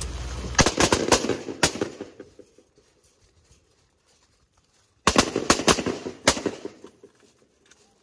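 M4 carbines (5.56 mm) firing live rounds in two quick strings of several shots each, about four seconds apart. Each string echoes away afterwards.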